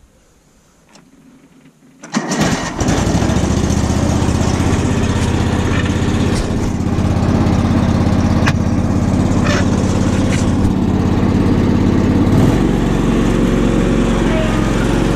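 Cub Cadet 3205 lawn tractor engine starting about two seconds in, catching almost at once, then running steadily; its engine note changes about twelve seconds in.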